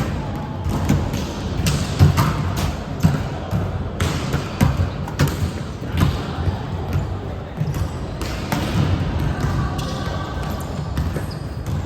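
Volleyball play on an indoor court: irregular sharp thuds of the ball being struck and hitting the floor, over a steady low rumble of movement.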